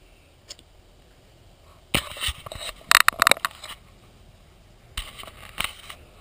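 Thin 10-denier fabric of a hammock underquilt rustling and crinkling as it is grabbed and pulled by hand, in two spells: a louder one about two to four seconds in and a shorter one near the end.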